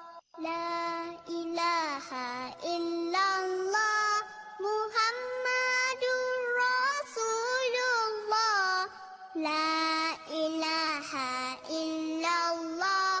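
Background music: a child's voice singing a melody in held, sliding phrases with short breaks between them.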